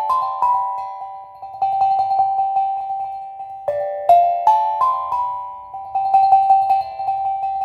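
Steel tongue drum playing ringing metal notes: a short rising run of notes left to ring out, then one note tapped quickly over and over, with the same pattern starting again about halfway through.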